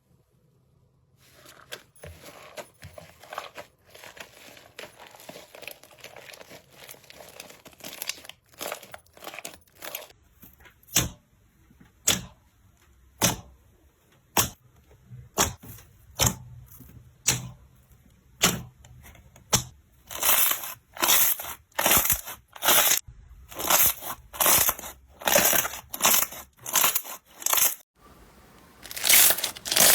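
Slime being pressed and pulled by hand, crackling and popping: a dense crackle at first, then separate sharp pops, and in the last third a regular run of louder squeezes about two a second.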